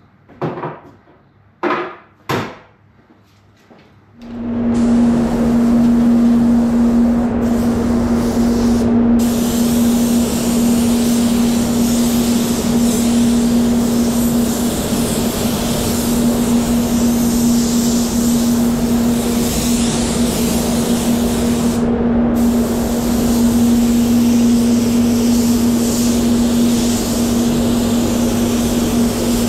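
Compressed-air spray gun (Satajet 100B) spraying high-build primer: a few short bursts in the first couple of seconds, then a loud, steady spray hiss from about four seconds in, over a steady low hum. The hiss cuts out briefly three times between passes.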